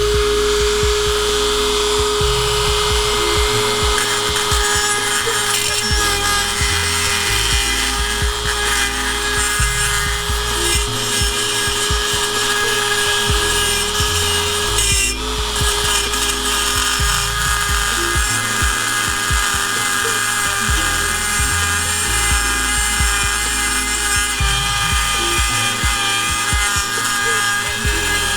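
Dremel 4000 rotary tool running steadily with a sanding pad, its motor whine held at one pitch, with harsh grinding and rubbing as it grinds down the cracked end of a muffler pipe. It dips briefly about halfway through. The grinding is meant to stop the two cracked ends tapping together and rattling.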